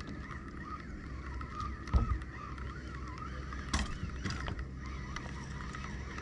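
Spinning reel being cranked while a hooked fish is reeled in, giving a steady, wavering whirr. There are two sharp knocks, about two and about four seconds in.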